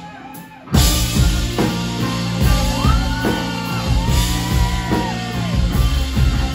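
Live rock band playing, with drum kit, electric bass, acoustic guitar and keyboard. The music drops out briefly at the start, then the full band comes back in loud less than a second in, with a melody line gliding up and down in pitch through the middle.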